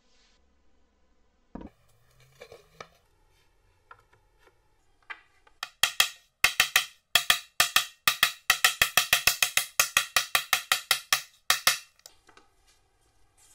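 Steel hammer striking a wooden block held on a board, driving a hidden dovetail joint together. It gives a few faint knocks, then from about six seconds in a quick run of sharp, loud strikes, about five a second, for some six seconds.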